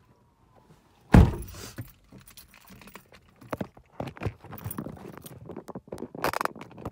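A car door shuts with a thump about a second in, followed by keys jangling and scattered clicks and rustles of handling inside the car.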